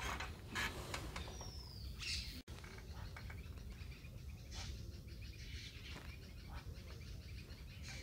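Wild birds chirping and calling in short notes, with one brief falling whistle about a second and a half in, over a steady low rumble.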